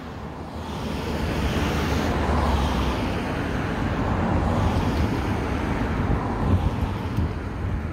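Road traffic going by: a steady rumble and rush of noise that grows louder over the first couple of seconds and then holds.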